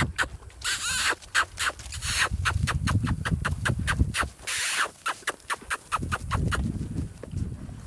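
Rapid, sharp tongue clicks and kissing sounds, several a second, the handler's cue driving a longed horse forward at the canter, with two short breathy rushes and some low rumble between them.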